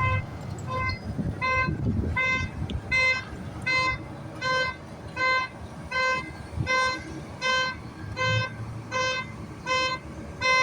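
Reversing alarm on construction machinery beeping steadily, about four beeps every three seconds, over a low rumble.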